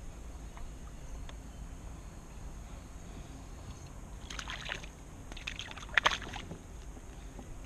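Water sloshing against a kayak hull over a low wind rumble, with two short bursts of splashing about four and six seconds in, the second the louder.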